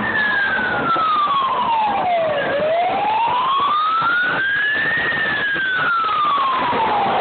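Fire engine siren wailing in a slow rise and fall, dropping low about two and a half seconds in, peaking again about five seconds in and falling once more near the end. A fainter second siren sweeps higher up over a steady noise of street traffic.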